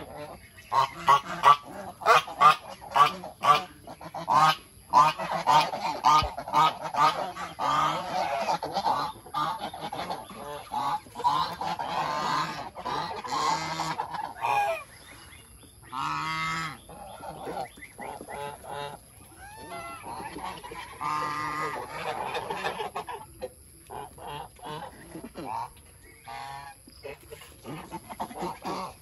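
A flock of domestic geese honking, many short calls overlapping, busiest in the first half and thinning out to scattered calls later.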